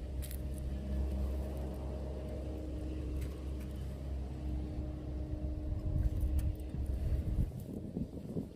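A motor vehicle's engine running steadily with a low rumble and hum, dropping away near the end.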